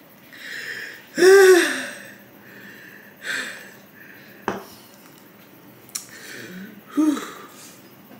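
A man hissing air in and out through his teeth and letting out two short wordless groans, the louder about a second in and another near the end, as he reacts to the burning heat of very spicy instant noodles. A couple of small clicks are also heard.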